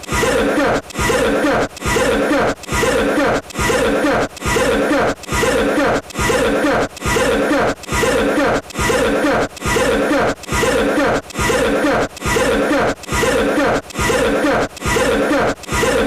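One short cough repeated as an identical loop, about one and a half coughs a second, evenly spaced and never changing.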